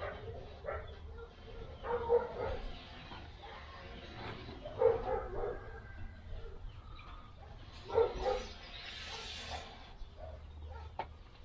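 An animal calling in the background, three short bouts about three seconds apart, over a low steady outdoor hum.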